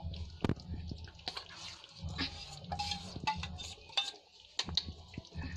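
Metal utensils clinking and knocking against a metal kadhai holding thick gravy: a string of irregular sharp clicks and taps, over a steady low hum.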